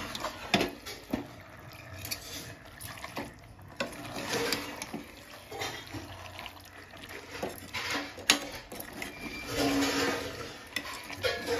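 Chicken curry being stirred with a metal spoon in a steel pot: wet sloshing of the chicken pieces in masala, with sharp clicks and scrapes as the spoon hits the side of the pot, the loudest about 8 seconds in.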